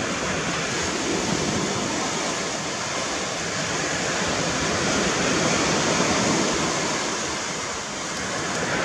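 Sea surf washing on the beach, a steady rush that swells a little midway and eases near the end.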